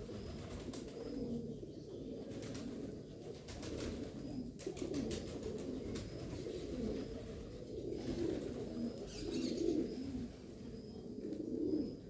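Several domestic pigeons cooing, their low warbling coos overlapping without a break, with a few light clicks scattered through.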